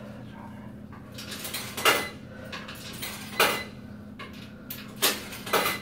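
Four sharp metallic clanks at a coin-operated clothes dryer. The first three come about a second and a half apart and the last two close together, over a steady low hum.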